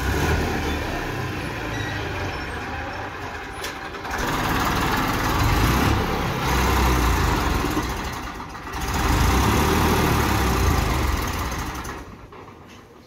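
Massey Ferguson 241 DI tractor's three-cylinder diesel engine working under load as the tractor hauls a loaded earth trolley up a dirt ramp. The engine gets louder twice, about four and nine seconds in, then eases off near the end.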